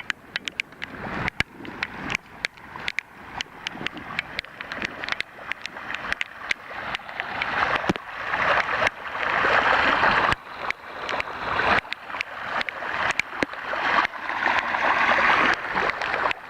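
Legs wading through calf-deep floodwater, each stride a swishing splash that swells and fades every second or two, with many sharp clicks throughout.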